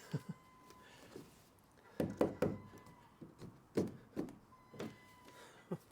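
Irregular dull thumps and knocks, about eight of them, as a rubber door seal is pushed onto the metal rim of a Renault Master van's sliding-door opening.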